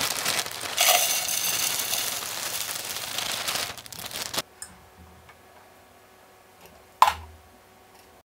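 Soy wax flakes pouring from a crinkling plastic bag into a metal pour pitcher, a dense rustle for about four seconds that stops suddenly. About seven seconds in comes a single sharp knock, the pitcher being set down on the hot plate.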